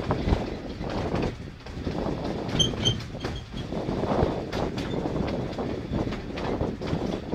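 Narrow-gauge train hauled by a Hunslet steam locomotive running along the line, heard from one of its carriages: a steady rumble and clatter of the wheels on the track, rising and falling in uneven pulses.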